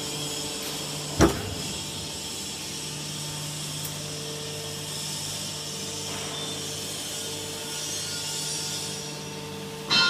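Automatic can baler's hydraulic pump unit running with a steady hum. A sharp metallic knock comes about a second in, and a loud metal clang that rings on sounds at the very end.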